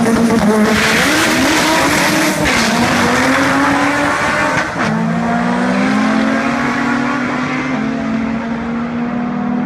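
Two drag cars, one a turbocharged Honda Civic, at full throttle down the strip, their engine pitch climbing and dropping back with each of several gear shifts as they pull away.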